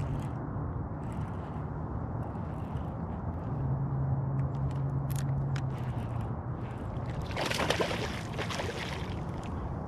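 Water sloshing and gurgling close by, with a louder splashing burst about seven and a half seconds in.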